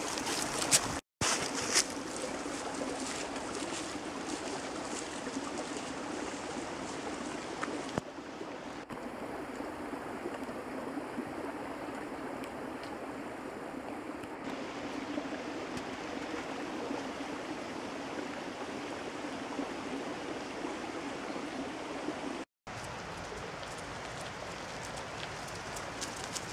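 Steady rushing noise, broken by two brief silent dropouts, about a second in and near the end.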